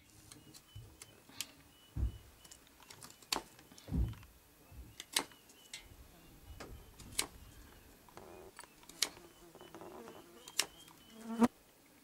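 A knife cutting into a green willow stick to carve a willow whistle. The blade makes sharp, irregular clicks about once a second, with a couple of dull knocks from handling the stick.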